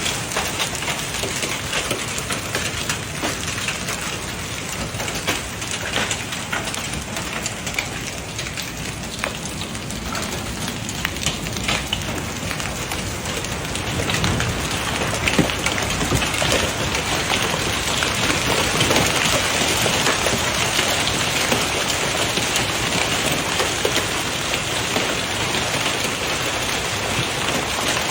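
Rain falling steadily, with many close drop impacts, growing louder about halfway through.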